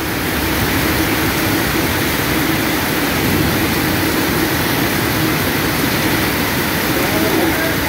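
Steady rain coming down hard, an even hiss, with a faint steady hum underneath.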